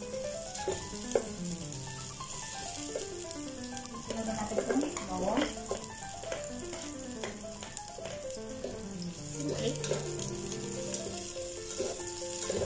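Sliced onions sizzling in hot oil in a nonstick pot, stirred with a spatula, with a few scrapes and knocks of the spatula against the pot, the most around five seconds in. A background music melody plays over the frying.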